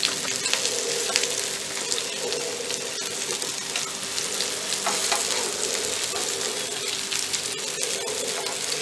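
Alu vadi slices, rolled colocasia leaves coated in gram-flour batter, sizzling steadily in shallow oil in a nonstick frying pan. A spatula turns them over to fry the second side, with scattered light scrapes and taps against the pan.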